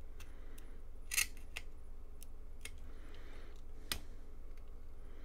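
Rosin flux in copper desoldering braid crackling and spitting under a hot soldering iron tip as it heats a solder joint: scattered sharp ticks with short faint sizzles, two of the ticks louder, about a second in and near four seconds in.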